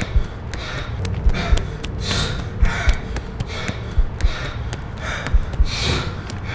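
A person breathing hard and fast, gasping in and out about twice a second. Under the breathing are dull low thuds that come in pairs about every second and a quarter.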